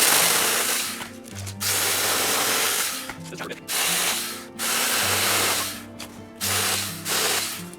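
Battery-powered 6-inch mini chainsaw cutting through small branches in short bursts, about six cuts of a second or so each with brief pauses between, over background music with long held notes.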